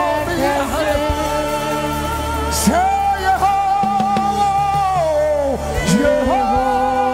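Live gospel worship singing: a man and two women sing into microphones over instrumental backing, with one long held note in the middle.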